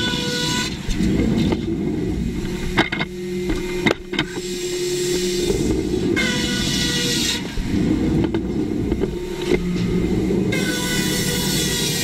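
Band sawmill cutting a log, its machinery running with a steady low rumble. Three times, at the start, about six seconds in and near the end, a loud hiss with a thin whine rises over it for a second or so, and a few sharp knocks come about three to four seconds in.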